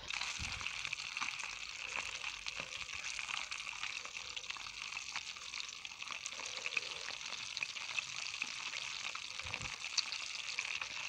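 Fish frying in hot oil in a pan over a wood fire: a steady sizzle with scattered crackles and pops, and an occasional click as the pieces are turned with a fork.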